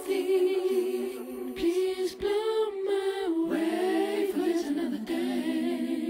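Outro music: a cappella vocals, several voices holding sustained harmonies.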